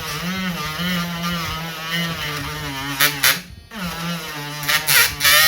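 Dremel rotary tool with a sandpaper tip grinding down a laptop palmrest: the motor whine wavers in pitch as it is pressed into the work, breaks off briefly about three and a half seconds in, then starts again with harsh grinding noise loudest near the end before stopping.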